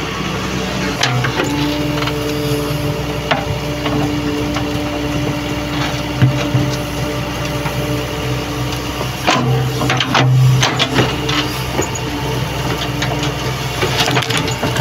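Excavator's diesel engine running steadily, with its hydraulics whining, and sharp knocks and cracks several times as it works at tree stumps.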